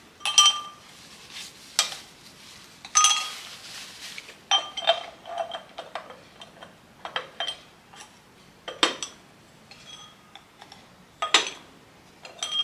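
Small glass spice jars clinking against one another and against a bamboo tray as they are unpacked and set out: a dozen or so sharp, irregular clinks, several with a short ring.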